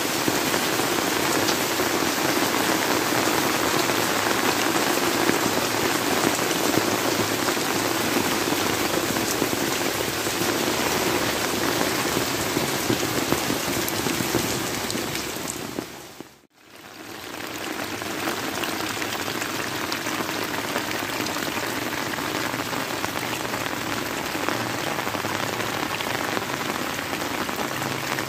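Heavy rain falling steadily on leaves and wet ground, a dense even hiss that fades out and back in about halfway through.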